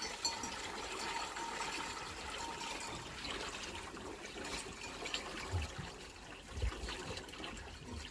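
Water pouring in a steady trickling stream from a plastic jerrycan into a metal trough, with a soft low bump about two thirds of the way through.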